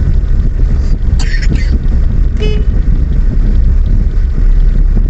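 Steady low rumble of a road vehicle on the move, with wind buffeting the microphone, and a short horn toot about two and a half seconds in.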